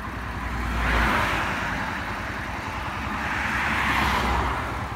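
Road noise while riding: a steady rush of wind and traffic over a low engine rumble, swelling twice, about a second in and again near the end.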